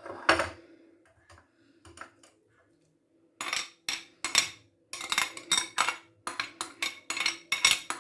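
Kitchen utensils and dishes clinking: two sharp knocks at the start, a few light clicks, then from about three and a half seconds in a run of quick repeated clinks and scrapes, about three a second.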